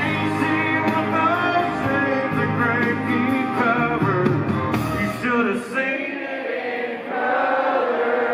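Live country band playing the closing bars of a ballad under the singing, with the audience singing along. The bass and low instruments drop out about six seconds in, leaving the voices.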